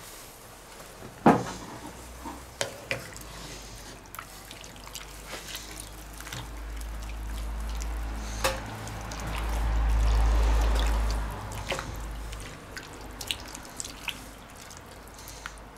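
Wooden spoon stirring a liquid stew in a cast-iron Dutch oven: wet sloshing and dripping, with scattered clicks and knocks of the spoon against the pot. A low rumble swells in the middle and then fades.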